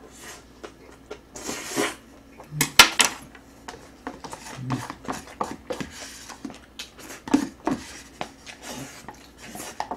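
Chopsticks and a wooden spoon clicking and scraping against the inside of a cup-noodle container and a plate, an uneven run of sharp taps and scrapes, the loudest tap about three seconds in.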